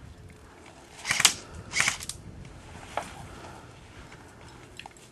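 Airsoft guns firing: a short burst of rapid snaps about a second in, another just before two seconds, then a single shot near three seconds.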